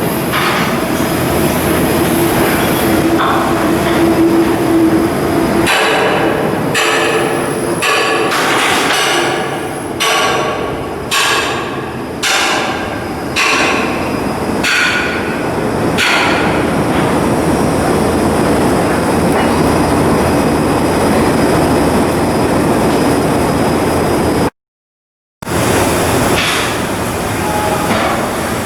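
Shipyard steelwork noise: a steady machinery drone with a hum at first, then a series of irregular ringing metal strikes, like hammering on steel plate, for about ten seconds.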